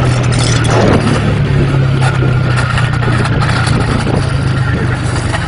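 A motor vehicle engine running at a steady speed as a constant low hum, with a loud rushing noise over it.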